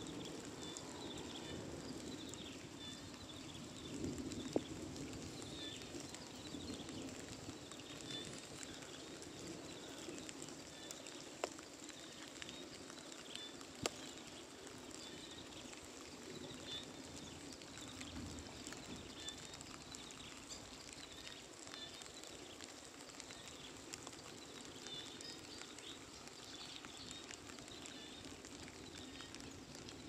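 Light rain falling outdoors: a faint, steady hiss with scattered high chirps and a few sharp ticks.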